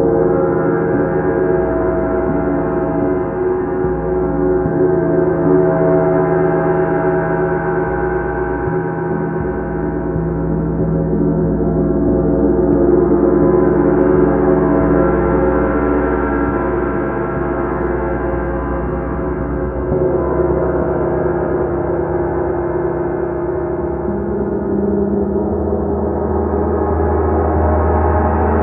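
Several Paiste Bronze gongs rubbed and struck softly with felt mallets, their many sustained tones overlapping into one continuous, shimmering wash. It swells and ebbs, with deeper tones entering in the later part.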